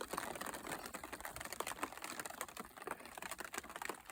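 Scattered big raindrops falling and striking, a faint, irregular patter of separate taps as the shower lets up.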